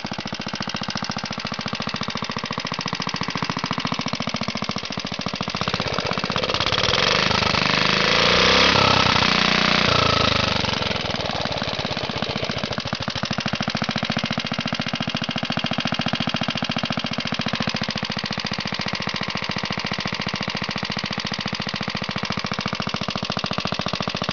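Restored vintage Clinton air-cooled single-cylinder small engine running steadily with rapid, even firing pulses. It swells louder for a few seconds from about six to eleven seconds in, then settles back to the same steady run.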